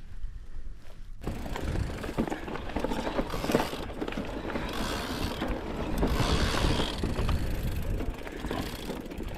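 Mountain bike rolling over a rough dirt trail: tyre noise and drivetrain rattle, starting abruptly about a second in.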